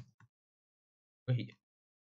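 Brief fragments of the narrator's voice, a short sound at the start and another about a second and a half in, between stretches of dead silence.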